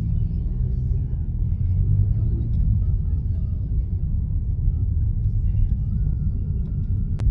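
Steady low rumble with no clear events.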